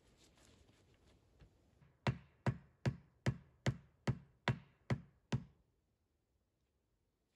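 Dry pine poles of a log shelter wall being knocked into place by hand: nine sharp wooden knocks, evenly spaced at about two and a half a second, starting about two seconds in, after faint rustling of handled wood.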